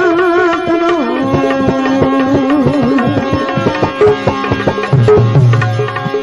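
Instrumental interlude of a bhajan: a sustained, wavering melody instrument over a steady run of hand-drum strokes, between sung lines.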